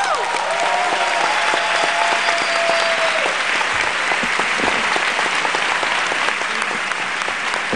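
A large theatre audience applauding steadily. In the first three seconds one voice holds a long cheering call over the clapping.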